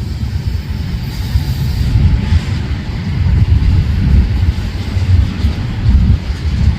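Freight train rolling past with a heavy, uneven low rumble, and gusty wind buffeting the microphone.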